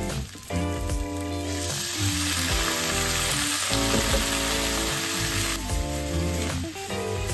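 Salmon fillets and sliced onion sizzling in a frying pan. About a second and a half in, water poured into the hot pan to steam-fry them sets off a loud sizzle that lasts about four seconds, then dies back.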